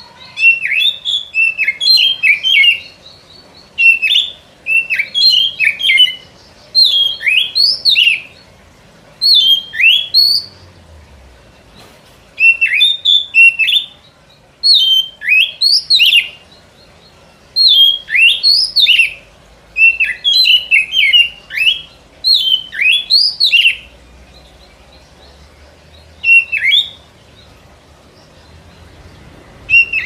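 Oriental magpie-robin (kacer) song played as a trapping lure. About a dozen loud phrases of sharp, quickly sliding whistled notes, each a second or two long, separated by short pauses.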